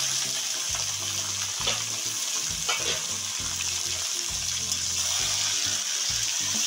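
Raw chicken pieces sizzling loudly in hot mustard oil in a steel kadai, a steady hiss of frying, with a metal spatula scraping the pan a couple of times as the pieces are stirred.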